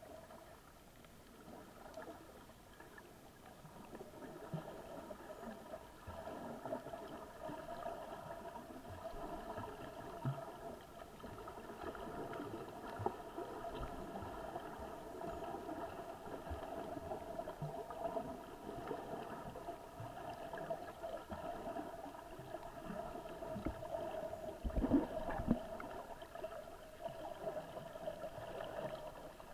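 Muffled underwater sound picked up by a GoPro in its waterproof housing: a steady hum over a low watery rumble, with scattered low thumps and two louder ones near the end.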